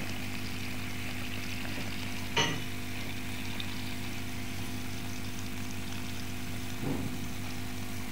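Generator set engine running steadily while loaded by a submersible pump, with water gushing from the pump's outlet pipe. A short knock about two and a half seconds in.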